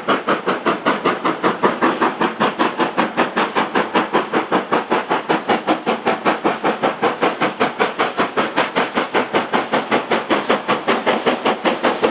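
LNER B1 No. 1264, a two-cylinder 4-6-0 steam locomotive, working hard up a gradient with an even, fast exhaust beat of about four chuffs a second.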